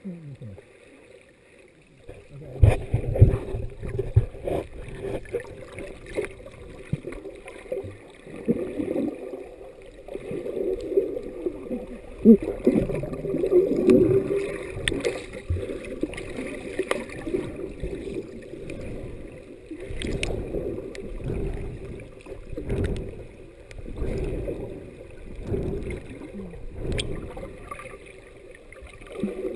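Water moving and sloshing as heard underwater through a camera's waterproof housing: muffled, dull surges that swell and fade irregularly with swimmers' strokes, plus a few faint clicks. The first couple of seconds are quieter.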